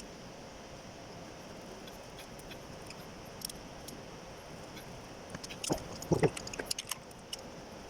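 Hand tools being handled during engine assembly: one click about halfway in, then a short cluster of metallic clicks and a knock near the end.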